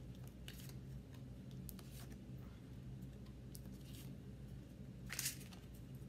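Tarot cards being shuffled and handled: faint scattered flicks and rustles, with a louder rustle of the cards about five seconds in.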